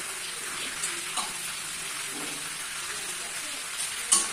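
Beguni, battered eggplant slices, deep-frying in hot oil in a kadai with a steady sizzle, and one sharp click near the end.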